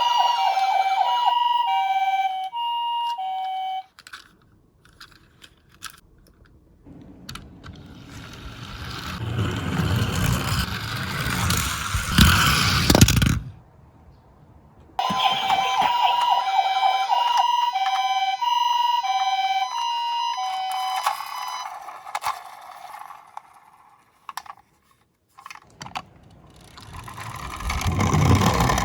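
Toy ambulance's electronic two-tone siren alternating high-low in the Japanese 'pee-po' pattern. It stops, and a toy minicar rolls down a slope with a rising rumble that ends in a loud knock about halfway through. The siren sounds again for several seconds, and near the end another car starts rolling down.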